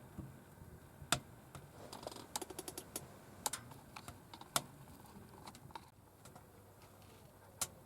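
Wood fire crackling in a small wood-burning camp stove during its first firing: scattered sharp pops, with a quick run of them about two to three seconds in.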